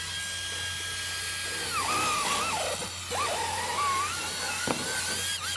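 High-pitched whine of a small electric motor, steady at first, then dropping lower about two seconds in, wavering, and slowly climbing back up.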